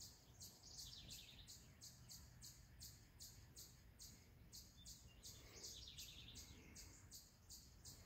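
Faint outdoor birdsong: a steady run of short high chirps, about three a second, with a falling trill about a second in and again about five seconds in.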